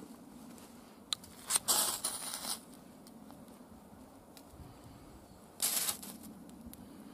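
Spine of a Fallkniven Idun knife scraped hard down a ferro rod to throw sparks onto feather-stick shavings: a light tap, then a short scrape and a longer rasping one about a second and a half in, and another short rasping strike about four seconds later.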